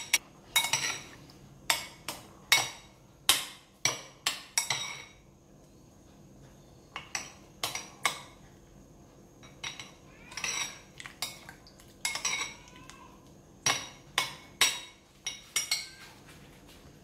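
Metal spoon stirring and mashing tamarind pulp in water in a bowl, clinking sharply and repeatedly against the bowl's side. The clinks come thick and fast at first, pause briefly, then carry on more unevenly.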